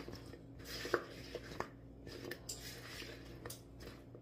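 A spatula stirring sauce-coated French fries in a plastic mixing bowl: soft scraping with scattered light clicks as it knocks against the bowl.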